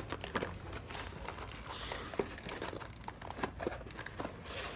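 Rustling and crinkling as a cardboard LEGO box is rummaged and the plastic parts bags inside it are handled, with many light, irregular clicks.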